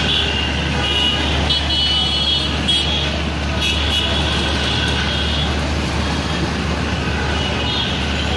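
Street traffic noise with vehicle horns honking several times over a steady low rumble.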